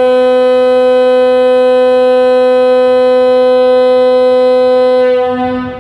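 U72A locomotive horn sounding one long, steady blast that trails off about five seconds in.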